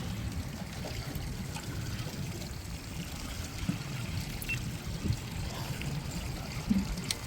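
Water lapping and trickling against the hull of a drifting fishing boat, with a few light knocks.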